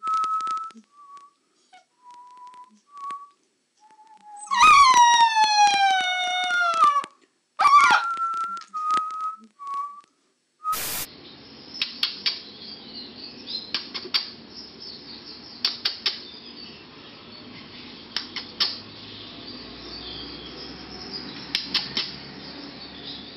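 Husky-type puppy whining in short high squeaks, then letting out a loud howl about five seconds in that slides down in pitch over a couple of seconds, followed by a brief second cry and more squeaks. After a sharp click near the halfway point, a steady hiss with scattered sharp clicks.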